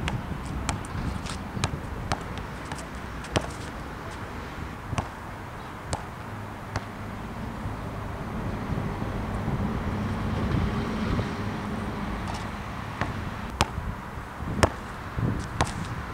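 A basketball bouncing on an outdoor asphalt court: scattered sharp knocks at irregular intervals, a few more together near the end. Behind them runs a steady low rush of wind on the camera's built-in microphone.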